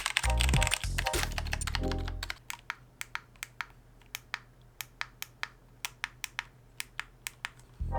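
Background music for about the first two seconds, then it drops out. Mechanical keyboard typing follows: irregular keystroke clicks, about three to four a second, from the Mountain Everest Max keyboard with Cherry MX Red linear switches.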